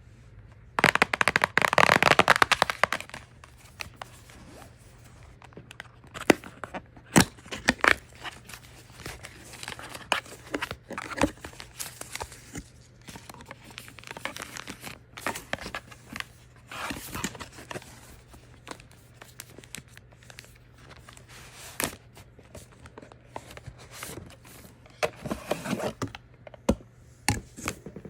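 A product box being unboxed: a loud, crinkly tearing rip lasting about two seconds near the start, then scattered crinkles, clicks and taps as the packaging is handled.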